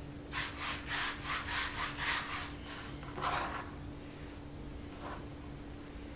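Hands rubbing and rustling fresh cilantro, a quick run of about eight short scratchy strokes, then one more a little after three seconds, over a faint steady hum.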